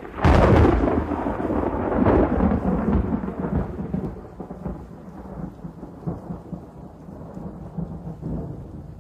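Close thunderclap: a sudden sharp crack just after the start, then a long rolling rumble that swells again about two seconds in and slowly fades, with rain falling.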